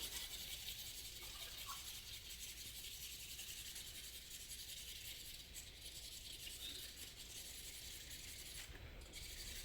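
Faint, steady scraping of a carrot being shredded into thin strips by hand for som tam.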